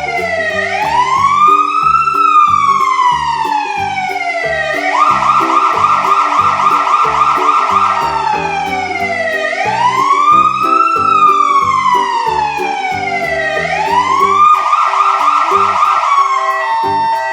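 Fire truck siren wailing in long slow rises and falls, switching twice to a fast warble, over background music with a steady beat.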